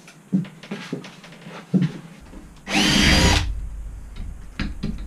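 A cordless drill runs once, for under a second, into a plywood board, its whine rising and then falling in pitch. Before and after it come a few sharp knocks of the board and tools being handled.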